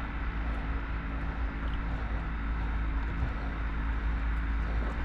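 A boat's engine running steadily, a low hum with a constant pitch, under a haze of wind and water noise.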